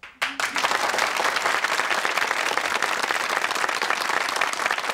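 Studio audience applauding: a steady mass of many hands clapping.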